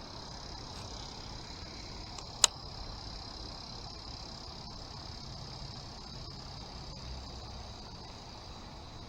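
Insects chirring in a steady high drone, with a single sharp click about two and a half seconds in.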